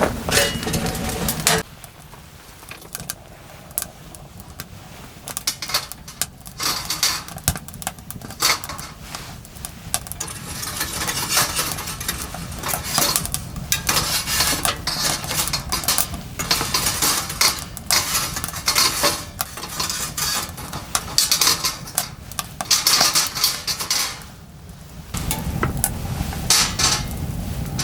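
Irregular clinking and clattering of cutlery against pots and dishes, with some scraping and stirring. A fuller, steadier sound covers the first second and a half and returns near the end.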